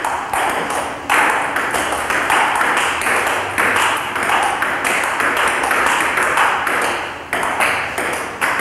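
Table tennis rally: a ping-pong ball clicking off the rubber paddles and the table in quick, regular succession, over a steady hiss.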